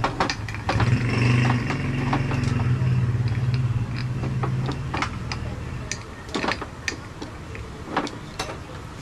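An engine running at a steady idle that dies away about five seconds in, with sharp metallic clinks and knocks of tools throughout.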